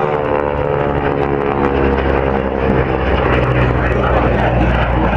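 Piston engines of two propeller warplanes flying past in formation: a steady, droning engine note that turns rougher and noisier about halfway through.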